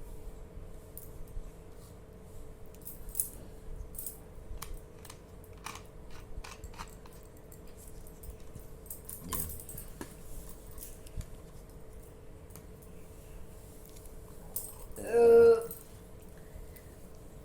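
Scattered light clicks and taps over a faint steady hum, then about fifteen seconds in a woman lets out one loud burp after downing a 750 ml bottle of Thums Up cola.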